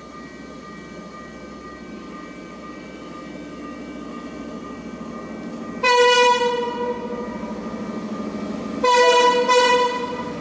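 Air horn of an approaching Chinese-built diesel-hauled long-distance train: one long blast about six seconds in, then two short blasts near the end. Under the horn, the low rumble of the train grows as it draws near.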